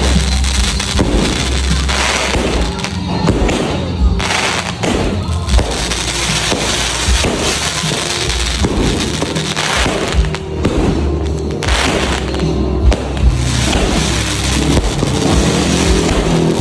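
Loud music with a heavy bass line, mixed with repeated fireworks and firecracker bangs and crackling, several sharp bangs standing out above the rest.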